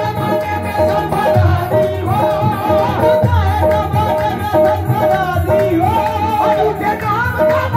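Live qawwali: male voices singing a long, wavering melodic line over harmoniums and a dholak, amplified through a PA system. A short high note repeats evenly throughout, with low drum strokes underneath.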